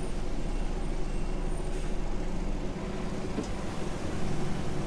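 Diesel engine of a 2022 DAF XF 480 truck, a PACCAR MX-13, running steadily at low speed, heard from inside the cab as a low, even hum.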